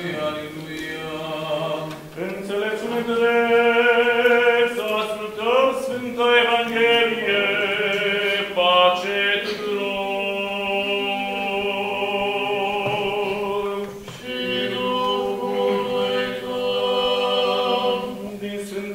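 Orthodox church chant: male voices sing long, slowly moving phrases over a steady low held note, with short breaks about two seconds in and again near fourteen seconds.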